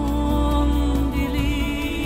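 Slow background music: a held melodic note over a steady low bass.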